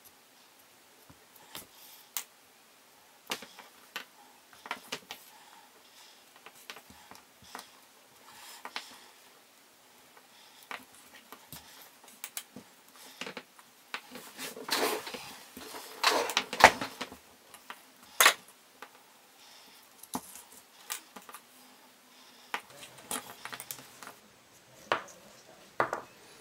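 Close handling sounds of hands working thread and a needle on a workbench: scattered small clicks and taps, with a stretch of louder rustling and scraping from about 14 to 17 seconds.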